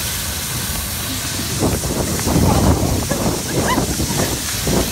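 Steam hissing from the LNER Peppercorn A1 locomotive Tornado. About a second and a half in, a louder uneven low rumble and short voices join it.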